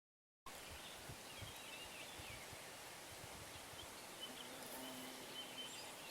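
Faint steady background noise with small birds chirping in the distance, starting suddenly after about half a second of dead silence.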